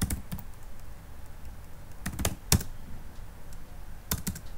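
Computer keyboard keys being typed in short runs: a quick string of keystrokes at the start, another about two seconds in ending on one keypress louder than the rest, and a few more near the end.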